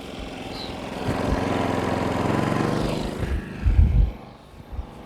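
Small engine running, swelling up over about a second, holding for about two seconds, then dropping back. A few deep thumps follow near the end.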